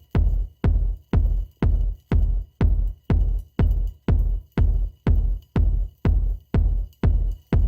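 Background electronic music with a heavy kick drum thumping about twice a second in a steady beat.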